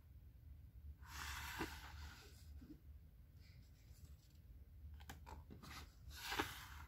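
Glossy pages of a picture book being turned by hand: a papery swish about a second in and a shorter one near the end, with a few light paper taps just before the second.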